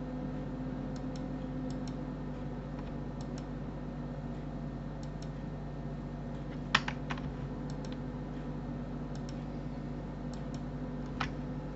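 Computer mouse and keyboard clicking: several quiet paired clicks of a mouse button, and a few sharper, louder clicks about seven seconds in and near the end, over a steady low hum.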